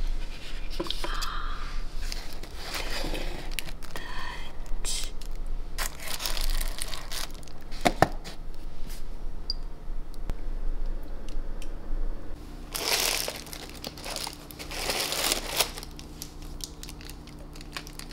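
Tissue paper crinkling and rustling in irregular bursts as a perfume bottle is unwrapped from its gift box, with one sharp click about eight seconds in.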